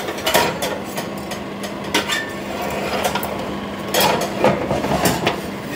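Metal spatula scraping and clinking against a wire oven rack while a pizza is slid onto a wooden board, with scattered knocks and clicks over a steady low hum.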